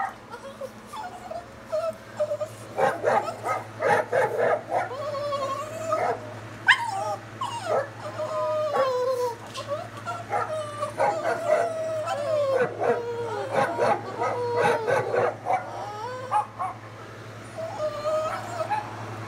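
Dogs whining and howling in long wavering cries, with short sharp barks and yips mixed in; the cries are busiest from about three seconds in until a few seconds before the end.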